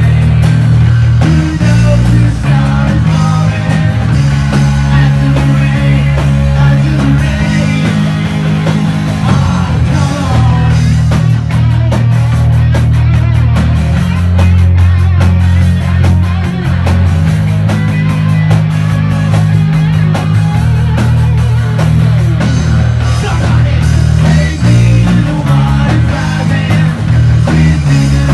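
Live rock band playing: electric bass, electric guitars and a drum kit. The bass's low notes are the loudest part, with cymbals ticking over the top.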